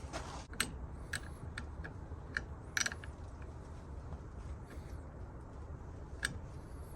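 Hand tools and metal parts clicking and clinking a handful of times at irregular intervals during a truck battery replacement, over a low steady rumble.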